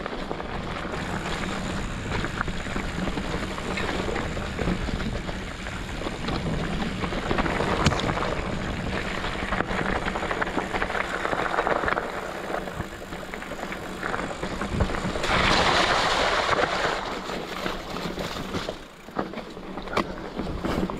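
Steady rushing wind and movement noise on the microphone, with scattered sharp knocks and a louder swell for about two seconds some fifteen seconds in.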